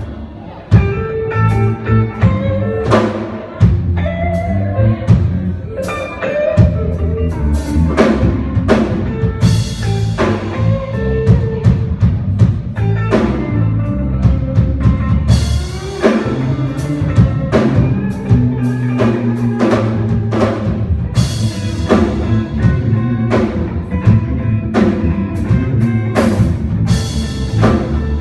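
Church band music with a drum kit, bass and guitar. Steady drum and cymbal hits sit over a moving bass line, with cymbal crashes ringing out several times.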